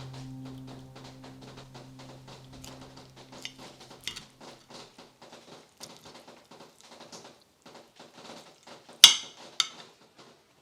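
Quick, light clicks and taps, several a second, with two sharp, louder clicks about nine seconds in; held music tones fade out over the first few seconds.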